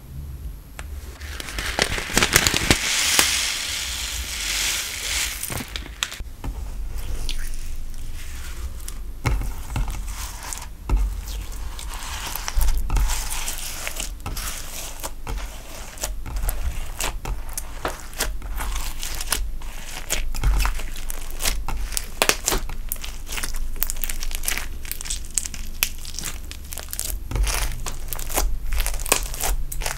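Hands squishing and folding a clear slime packed with foam beads and crushed eyeshadow, making crinkly crackling and a steady run of small pops and clicks.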